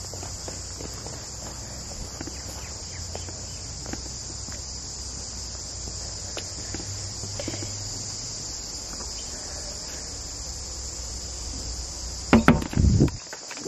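A steady, shrill insect drone, with a quick run of loud knocks on the glass panel of a front door near the end.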